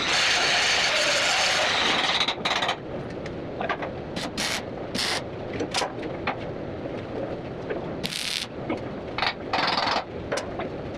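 Electric arc welding on steel: a steady crackling hiss of a weld run for the first couple of seconds, then it stops. Several short bursts of the same crackle follow, brief tack welds a fraction of a second each.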